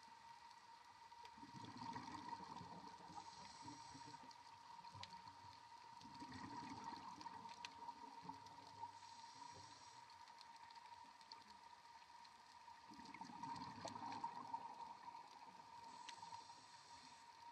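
Faint scuba breathing underwater: three breaths through a diver's regulator about six seconds apart, each a low rush of exhaust bubbles with a higher hiss or crackle, over a steady thin tone.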